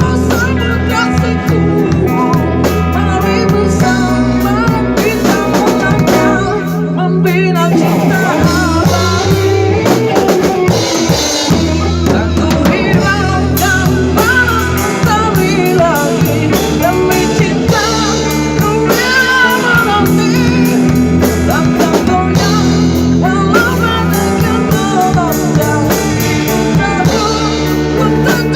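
Rock band playing live: drum kit with snare and bass drum, bass, and an electric lead line that bends and wavers above them.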